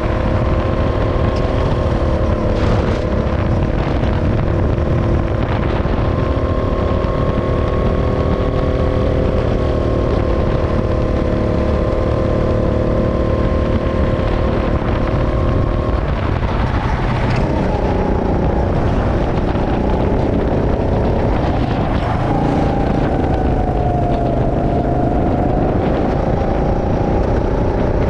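Go-kart engine running hard, heard from the driver's seat. The engine note holds steady for the first half, breaks and falls about halfway through, then dips once more and climbs again near the end.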